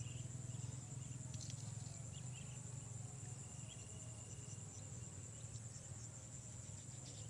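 Insects, likely crickets, trilling in a steady high buzz, over a low steady rumble, with a few faint short chirps.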